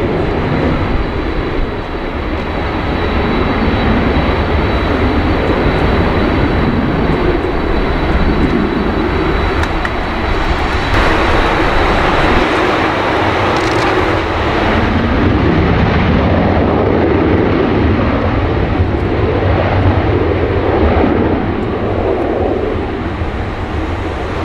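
Airbus A330-300 jet engines (GE CF6-80E1 turbofans) running on the runway: a steady rumble with a thin high whine held throughout.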